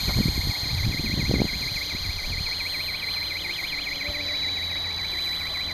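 Esky Belt CP V2 electric RC helicopter flying overhead: a steady high motor-and-gear whine with a rapidly warbling tone beneath it. Wind buffets the microphone in the first second and a half.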